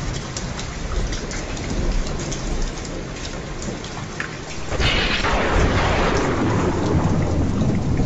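Steady rain with scattered drop ticks, then a thunderclap about five seconds in: a sudden crack that rolls into a loud, low rumble.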